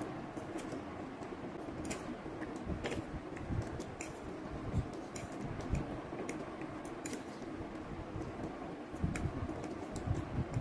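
Metal forks clicking and scraping on plates as two people eat quickly, a scatter of small irregular clicks over a low background.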